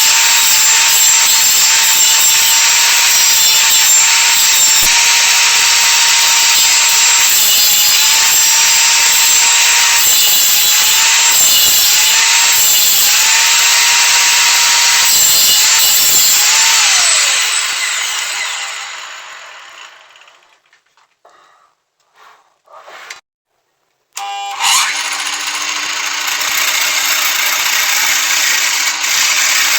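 Copy lathe's electric motor running while its cutter shaves pine, the motor's pitch dipping briefly under load several times. About seventeen seconds in the motor winds down to a stop, leaving a few faint knocks, then about twenty-five seconds in a machine starts suddenly and runs steadily with a lower hum.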